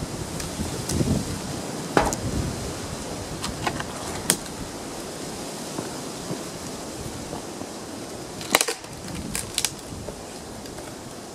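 Dry branches snapping as they are levered in the fork of a tree trunk: a few sharp cracks, the loudest about eight and a half seconds in, followed by more cracks about a second later.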